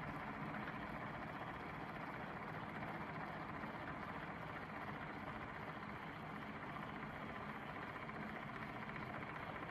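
Faint steady hum of a small motor: a tumbler cup turner slowly rotating an epoxy-coated tumbler.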